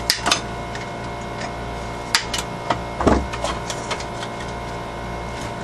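Scattered clicks and light knocks as a computer power supply's steel case, wiring and circuit board are handled and worked apart by gloved hands, with a louder knock about three seconds in. A steady hum runs underneath.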